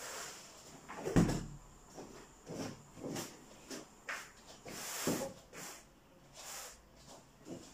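A grey folding foam exercise mat dropped flat onto a wooden floor with one heavy thud about a second in, followed by several softer thumps and scuffs as it is shifted into place and walked on barefoot.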